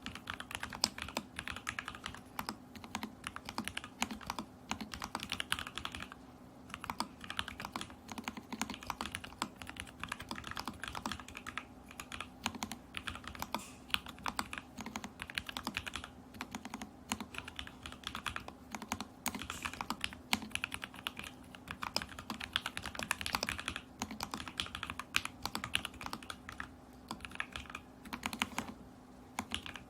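Steady, fast typing on an Alice-layout mechanical keyboard with lubed and filmed lavender switches, stack-mounted in a stacked acrylic case with tape mod; a dense run of keystrokes with a couple of brief pauses, one about seven seconds in and one near the end.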